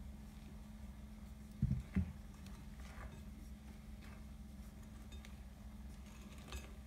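Two dull thumps about two seconds in as a glass bowl is set down on the table, then faint scrapes and taps of a spoon folding flour and cocoa into brownie batter in a glass mixing bowl, over a low steady hum.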